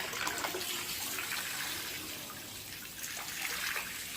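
Running water pouring and splashing steadily into the pool, with small splashes through it.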